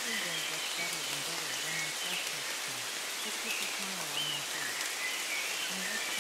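Steady rain, with a quiet low voice speaking affirmations buried beneath it.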